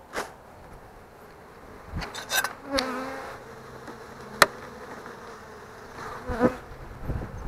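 Honey bees buzzing in a steady hum around an opened hive, stirred up by the disturbance, with several wooden knocks as the hive boxes are handled and one sharp click a little past the middle.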